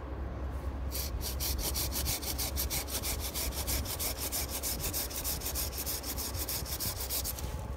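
Curved hand pruning saw cutting through a tree branch stub at the trunk in fast, even strokes. It starts about a second in and stops just before the end. This is the final collar cut, made at the thin spot where the branch meets the trunk after the branch's weight has been taken off.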